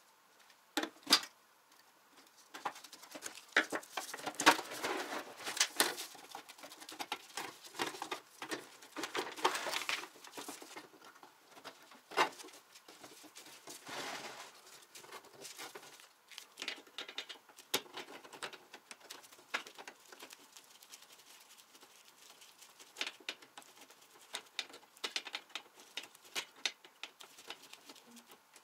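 Hand tools and sheet-metal parts of an old Soviet electric shashlik maker clicking, scraping and rattling as its casing is taken apart, with a few sharper metal knocks among many small clicks.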